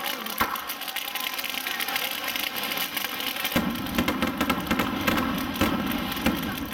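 Aerial fireworks going off continuously: dense crackling and many small sharp pops from the bursting stars. About three and a half seconds in, a low rumble joins and stays under the crackle.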